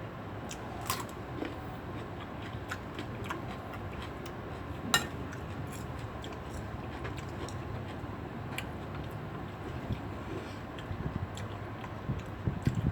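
Small clicks and taps of a meal being eaten, utensils and dishes knocking now and then, over a steady low hum, with one sharper click about five seconds in and a few more near the end.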